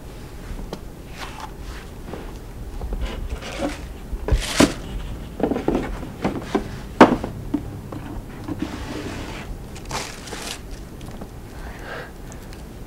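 Cardboard shoebox and shoes being handled: rustling with a few sharp knocks, the loudest about four and a half and seven seconds in, as the box is opened and a shoe is put on.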